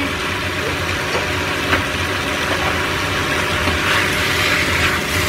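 Food sizzling in a stainless steel pan over a steady low fan hum. A spatula clinks against the pan a couple of times, and the stirring and scraping grow louder in the second half as jengkol slices and gizzards are turned.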